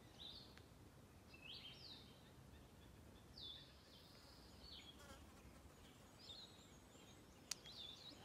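Faint birdsong: short chirping notes repeated every second or so, with a single sharp click near the end.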